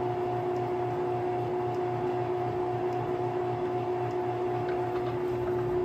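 Metal lathe spinning a balloon tire on a faceplate while the tire is trued, running steadily with an even hum and a steady whine.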